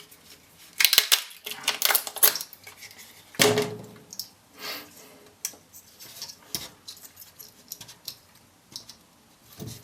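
18650 lithium-ion cells being pulled out of a laptop battery pack's plastic casing: irregular clicks, knocks and clatter of the metal cells and plastic, busiest in the first few seconds and sparser later.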